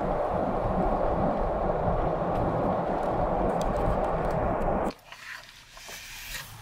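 Steady road and tyre noise with a low rumble, heard inside a moving car's cabin. About five seconds in it cuts off suddenly to a much quieter stretch with a few faint clicks.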